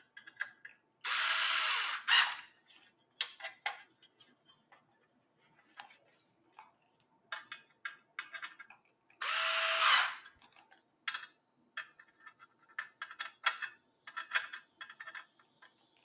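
Black+Decker cordless electric screwdriver tightening screws into a metal drive bracket. It runs in two bursts of about a second each, one about a second in and one about nine seconds in. Light clicks and taps fall between the bursts.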